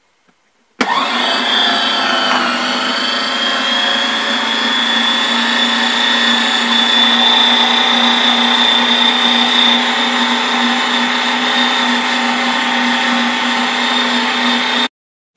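Electric meat grinder running steadily as it grinds garlic cloves: a motor hum with a high whine. It switches on about a second in and cuts off suddenly just before the end.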